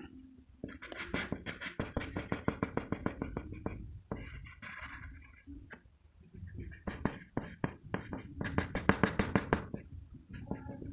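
Graphite pencil shading on paper: fast back-and-forth strokes, several a second, in two long runs with a short pause between them.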